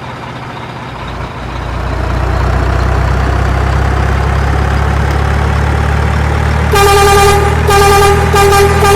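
Truck engine sound starting up and running with a steady low rumble, then a truck horn honking in several short blasts from about seven seconds in.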